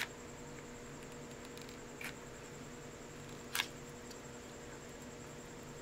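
Three short clicks as a hot glue gun and a small plastic tea light are handled, the third, about three and a half seconds in, the loudest, over a faint steady hum.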